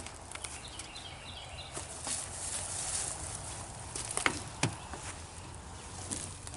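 Scattered knocks and scrapes as an old gas pump is wiggled to break it loose from the pipe it is attached to, the sharpest knocks about four seconds in.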